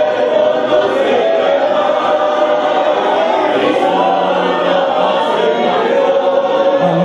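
A church choir of mixed voices singing a Spanish-language hymn with held notes.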